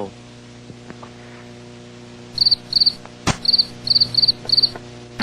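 Cricket-chirping sound effect, the gag for a joke met with dead silence. It comes in about two seconds in with short, high, pulsing chirps about twice a second, over a steady low hum, with a single sharp click midway.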